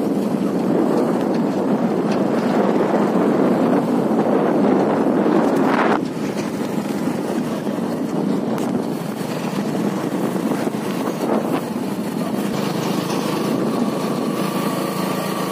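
Motorbike running along a road, its engine and the rush of wind on the microphone making a steady, loud noise that drops a little about six seconds in.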